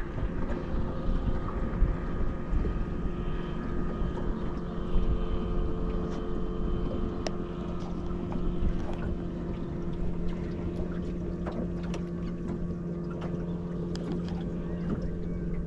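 Boat motor running steadily with a low hum, with wind rumbling on the microphone and scattered light ticks from about six seconds in.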